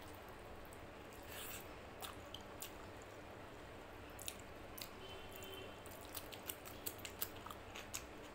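Fingers squishing rice into mutton curry on a plate, and chewing: scattered small wet clicks, quiet, coming faster in the last couple of seconds.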